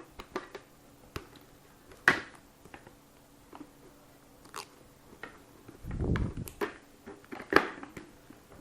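Handling noise from an MT Thunder 3 motorcycle helmet: scattered light clicks and taps of its plastic parts, two sharper clicks about two seconds in and near the end, and a short low rub about six seconds in.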